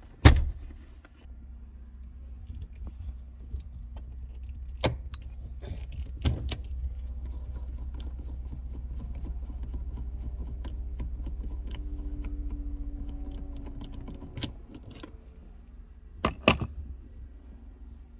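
A low steady car rumble with sharp clicks and a jangle over it. It fades out about fifteen seconds in, and a pair of loud clicks comes near the end.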